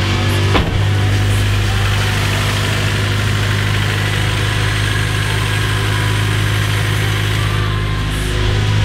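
Honda Civic's four-cylinder engine idling steadily, with a short knock about half a second in.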